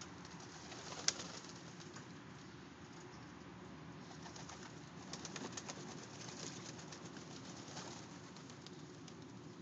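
Domestic pigeons cooing low and steadily, with one sharp click about a second in and a quick run of clicks and flutters about five to six and a half seconds in.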